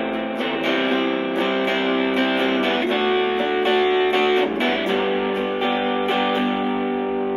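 Electric guitar played through a Positive Grid Spark GO portable amp on its lead preset: a run of notes and chords left to ring.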